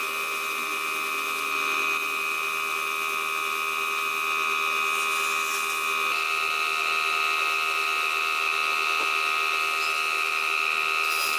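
A small high-speed electric motor running with a steady high whine.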